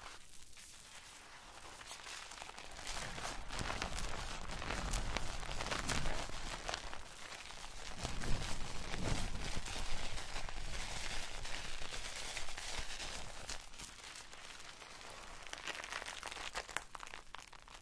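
Thick soap lather squeezed and kneaded between the hands close to the microphones, with wet squishing and a fine crackle of popping bubbles. It grows louder a few seconds in and eases off near the end.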